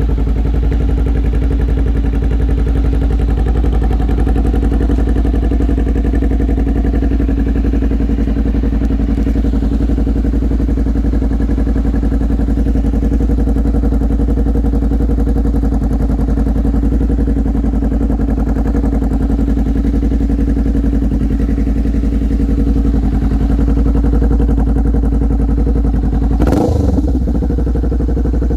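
Honda Rebel 500's parallel-twin engine idling steadily, then revved once briefly near the end.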